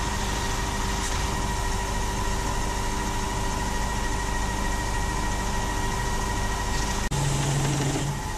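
Bench-mounted polishing motor running steadily with a grey abrasive wheel buffing a chrome ratchet, a steady hum over a rushing hiss. About seven seconds in the sound changes abruptly to a different, lower hum as a small wire wheel is on the spindle.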